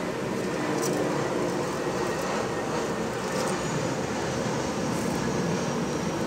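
Steady rumbling background noise, like distant traffic or a running machine, with a few faint short ticks high in pitch.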